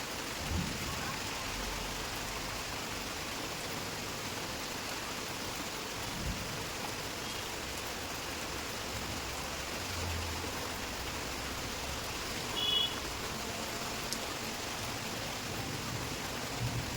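Heavy rain falling steadily, a continuous even hiss. A few faint knocks and a brief high beep about 13 seconds in.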